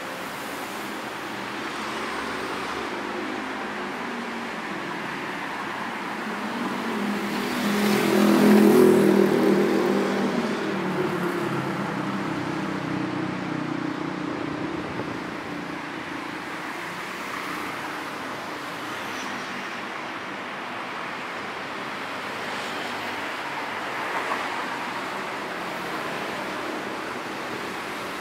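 Road traffic with steady passing-car noise, and one vehicle going by close about eight seconds in, its engine swelling and then fading away.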